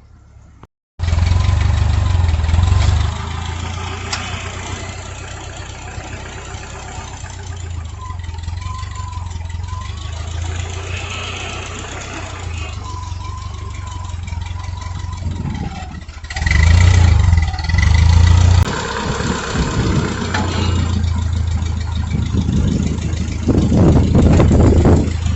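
Ford 8N tractor's four-cylinder engine running steadily, starting suddenly about a second in, with louder revved-up stretches near the start, about two-thirds through and near the end as it moves logs with its front forks.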